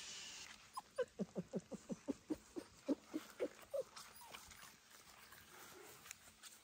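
Small dog whimpering: a quick run of about fifteen short, pitched whines, about five a second, lasting about three seconds, then stopping.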